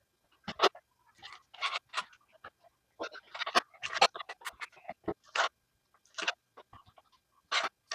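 Knife cutting raw steak into small pieces on a cutting board: irregular scraping and tapping strokes coming in quick clusters.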